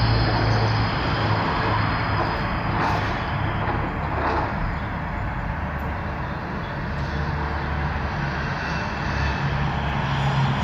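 Street traffic: motor vehicles running and passing, with a steady low engine rumble that eases a little midway and builds again near the end.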